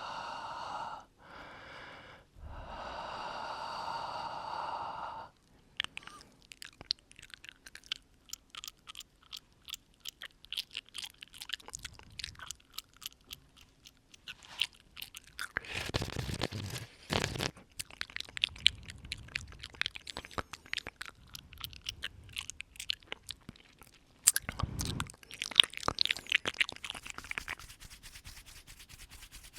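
Close-miked ASMR mouth sounds: long breathy exhales at first, then a steady run of wet clicks and smacks, with breaths blown onto the microphone twice more, about halfway through and near the end.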